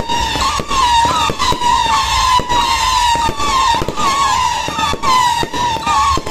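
Fireworks going off: a rapid run of sharp bangs and crackles over a continuous high whistle that wavers in pitch.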